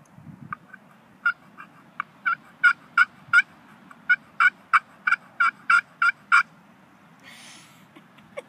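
Primos Bamboozled glass-surfaced turkey pot call worked with a striker, giving a string of short turkey yelps, about three a second, in two runs with a brief pause between them.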